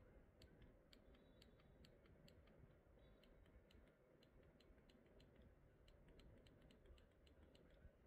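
Near silence with faint, irregular small clicks, about three or four a second, and two brief faint high tones about one and three seconds in.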